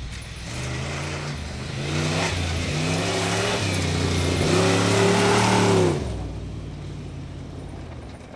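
Tomcat off-road rally car engine revving hard on a dirt track, its pitch rising and falling several times as the driver works the throttle and gears. The loudest stretch runs to about six seconds in, then the engine note drops away abruptly to a lower, quieter run.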